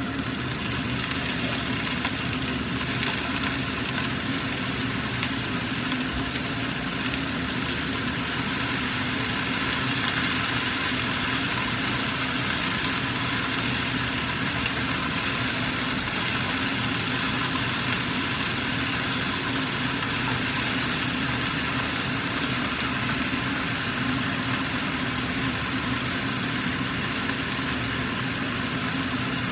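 Vegetables sizzling in hot oil in a frying pan as they are stir-fried, with a steady hum underneath.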